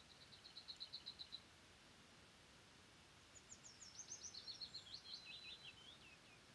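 Faint songbird song: a short, fast trill of even notes, then after a pause of about two seconds a longer phrase of quick notes falling in pitch.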